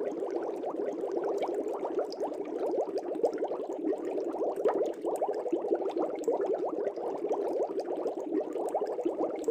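Continuous aquarium bubbling: a dense stream of small air bubbles rising through water, many quick little bubble sounds running together without a break.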